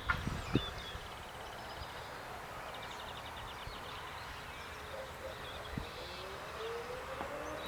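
Birds trilling against a faint outdoor background, then about six seconds in a chorus of distant civil-defence sirens begins to wind up: two faint tones rising slowly in pitch, one after the other.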